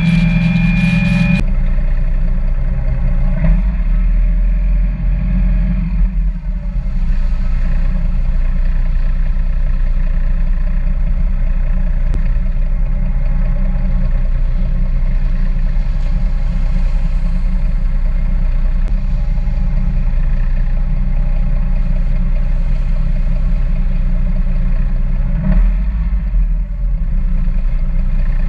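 Rigid inflatable boat (Parker 750 Baltic) running at speed: steady engine drone under heavy wind and rushing water. A set of high steady tones in the first second and a half cuts off abruptly.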